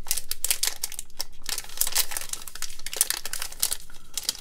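Crinkling of a trading-card pack's plastic wrapper, a dense run of crackles as hands handle it and peel it open.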